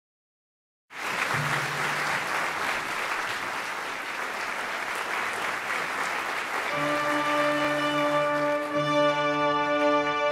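Audience applause starts suddenly about a second in. In the second half an orchestra comes in with long held notes, growing over the applause as it dies away.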